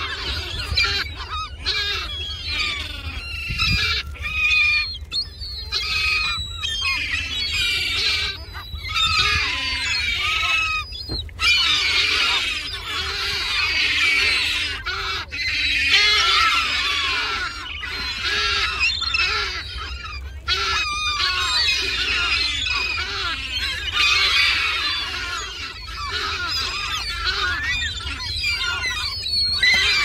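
A large flock of gulls being fed, calling over one another without pause in a dense chorus of short cries, with a low rumble underneath.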